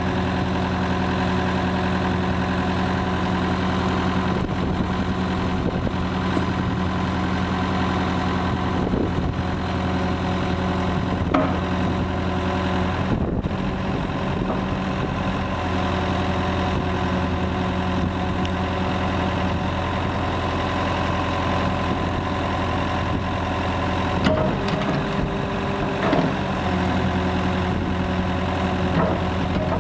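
Komatsu PW110 wheeled excavator's diesel engine running steadily while the hydraulic boom, arm and bucket are worked, with a brief change in the engine note about 24 seconds in.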